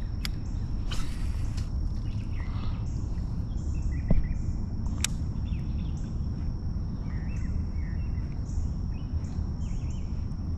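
Lakeside ambience: birds chirping in short calls over a steady low rumble, with a thin steady high-pitched insect drone. A few sharp clicks, a brief hiss about a second in and a knock about four seconds in come from the angler's gear.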